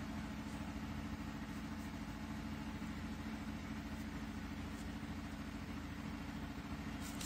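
A steady low mechanical hum, with a couple of faint light ticks.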